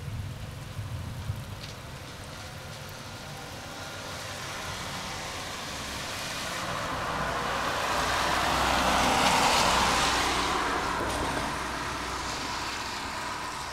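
A car passing on a wet road. Its tyre hiss and engine swell to a peak about two-thirds of the way through, then fade away.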